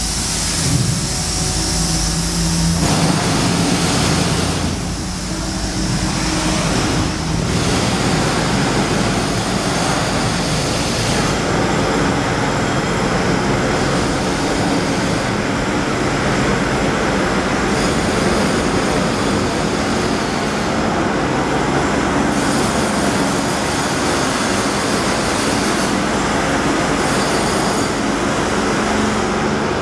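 Pneumatic jackhammer breaking concrete on a building construction site, a loud, continuous rapid hammering.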